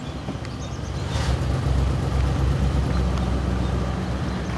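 Car's engine and road noise as the car pulls away, a steady low rumble that grows louder about a second in.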